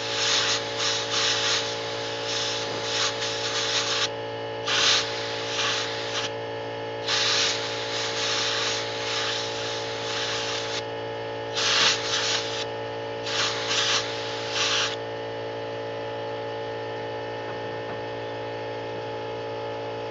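Repeated blasts of compressed air from a handheld air blow gun, some short and one several seconds long, used to cool an overheating high-speed-steel step drill bit. The blasts stop about 15 seconds in, leaving a steady machine hum.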